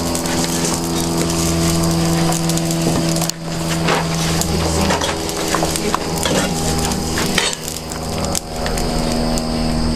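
Firewood being stoked into an anagama kiln's firebox, with wood clattering and crackling at the hot stoke port. Under it runs a steady, even, engine-like drone.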